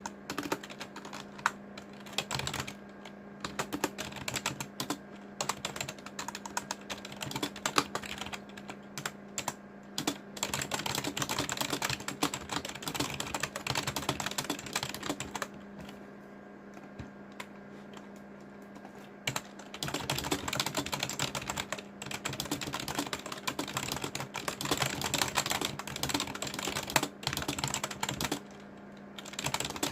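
Typing on a Daiso keyboard: fast, uneven key clacks. The typing stops for about four seconds around the middle and briefly near the end. A steady low hum runs underneath.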